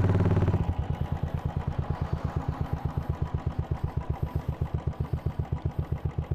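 Royal Enfield Classic 350's single-cylinder engine: it runs steadily under throttle, then about half a second in the throttle closes and it settles into a slow, even thump of about eight beats a second at low revs.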